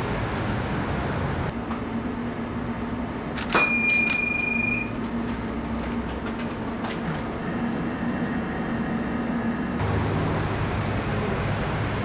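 A DSLR shutter fires with one sharp click about three and a half seconds in, followed by a steady high beep lasting about a second, over a low room hum. Street traffic noise fills the start and the end.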